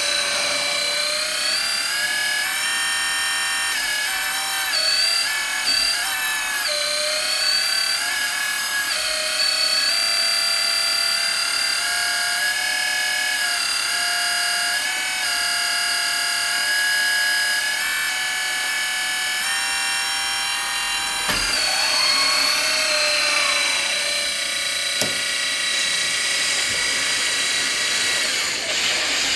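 Kabolite K350 RC hydraulic excavator's electric hydraulic pump whining as the boom, arm and bucket are worked. The whine steps and glides up and down in pitch as the load changes, with a falling glide about three-quarters of the way through.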